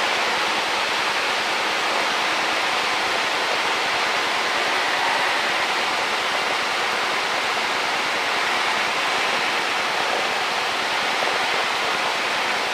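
Steady rushing hiss of a Cessna 152's cockpit in flight: engine, propeller and airflow noise as picked up through the headset intercom, even throughout with no distinct engine tone.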